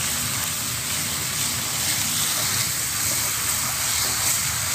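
Ground chili, garlic and shallot spice paste sizzling in hot oil in a non-stick wok while it is stirred with a silicone spatula: a steady hiss of sautéing.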